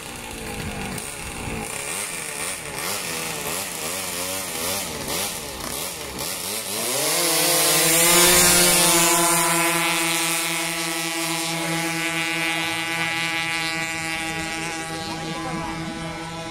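Racing scooter engines revving at a drag-race start line, their pitch wavering up and down as the throttles are blipped. About seven seconds in, one scooter launches: its engine note rises quickly and then holds at a steady high pitch as it pulls away, slowly growing fainter.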